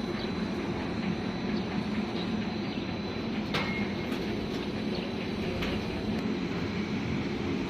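Arch-roof roll-forming machine running: a continuous mechanical rumble with a faint steady whine and a few sharp clicks.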